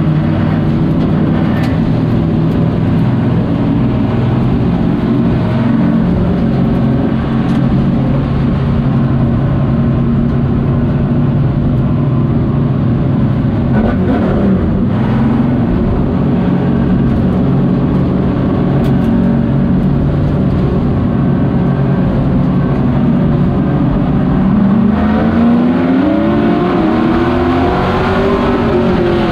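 Pro Truck race truck's engine heard from inside the cab at racing speed. It runs hard at a steady pitch for most of the time, then rises and falls in pitch near the end.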